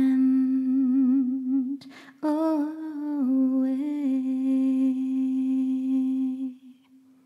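Female jazz singer holding two long sung notes, the first with a slow vibrato, the second starting about two seconds in and fading out shortly before the end; no bass is heard under them.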